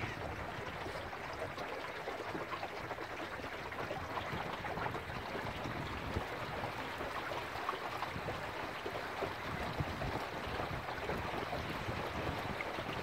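Water rushing and lapping along the hull of a small wooden sailing dinghy under way under sail: a steady rush with many small splashes.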